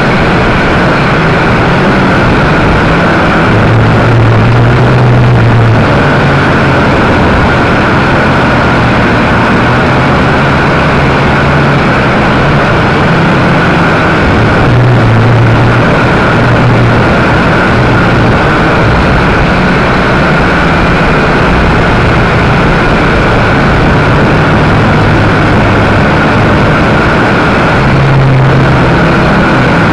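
WLtoys V222 toy quadcopter's small electric motors and propellers heard close up through its own onboard camera: a steady high whine over loud rushing noise. A lower hum swells and fades several times, at about four, fifteen and twenty-eight seconds in.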